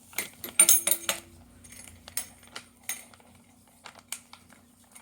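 Small metal parts clinking and tapping: Allen keys and bolts knocking against the balance bike's metal handlebar stem clamp. The loudest clinks come about half a second to a second in, one with a short ring.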